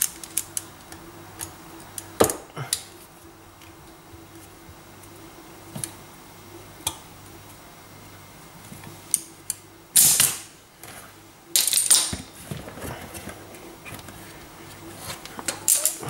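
Mole grips clinking and clicking against a spring hose clamp and the dishwasher's plastic frame as the clamp is squeezed and slid along a rubber pipe: scattered short metallic clicks and knocks, with louder, longer handling noise about ten seconds in and again about two seconds later.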